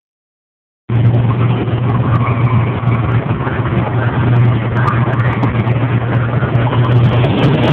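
A race pickup truck's engine running loudly and steadily at a constant pitch, starting abruptly about a second in.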